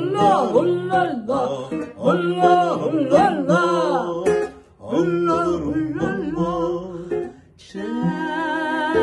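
A man and a woman singing a duet over a strummed acoustic guitar, in short phrases with brief breaks. Near the end they hold one long note with vibrato.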